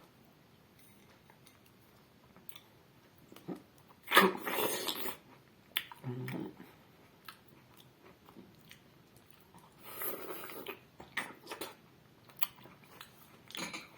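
A raw tomato bitten into and chewed close to the microphone: two loud bites, one about four seconds in and another about ten seconds in, with small wet mouth clicks and chewing between them.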